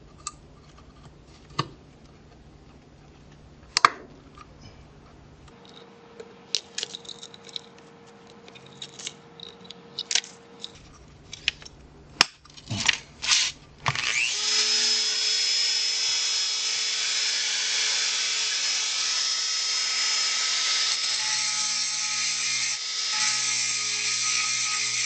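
Small metal clicks and scrapes as the rusty steel feeder parts are handled and pried with a metal rod. About fourteen seconds in, a handheld rotary tool starts abruptly and runs steadily with a high whine, its bit working at the joint between the wire cage and the base.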